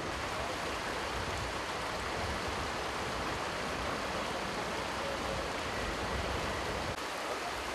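Shallow river rushing steadily, a constant wash of flowing water over stones and debris.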